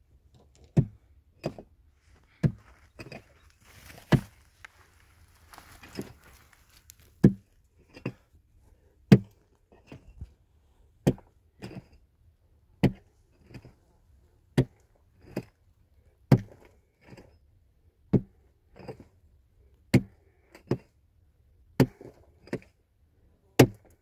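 Rhythmic chopping blows from a hand tool, usually a heavy strike followed by a lighter one, the pairs coming about every two seconds. A rustling, scraping sound runs between the blows a few seconds in.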